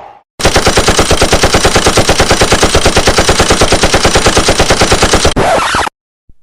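Machine gun sound effect: a burst of rapid automatic fire, about ten shots a second for about five seconds, ending with a brief tail.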